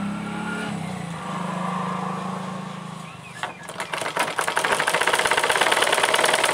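Black household sewing machine stitching piping onto fabric. It starts about three and a half seconds in with a fast, even clatter. Before that there is a steady low hum.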